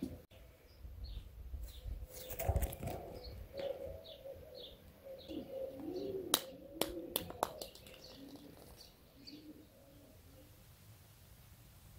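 Faint animal calls: a run of short, high chirps about twice a second, then a series of low, soft cooing sounds, with a few sharp clicks in the middle. The calls fade out near the end.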